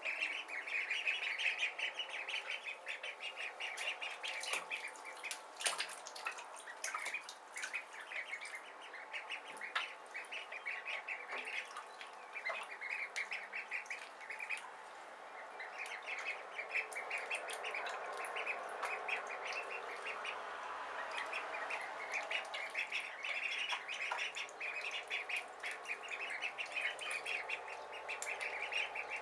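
A brood of Khaki Campbell ducklings peeping nonstop, many rapid high calls overlapping, with scattered sharp clicks.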